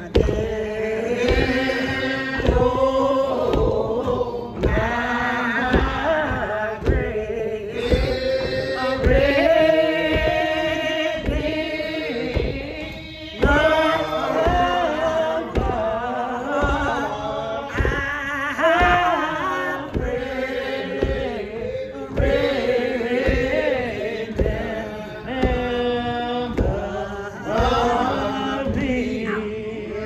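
A woman singing a hymn unaccompanied, in slow, long-held notes phrase after phrase, in the Primitive Baptist way without instruments.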